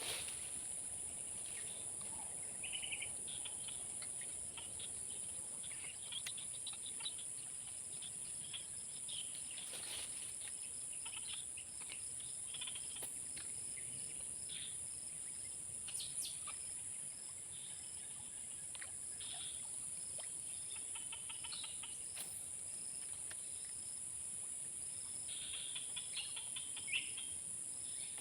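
Outdoor ambience: a steady high-pitched insect drone with bird chirps and calls coming and going over it, and a few faint clicks.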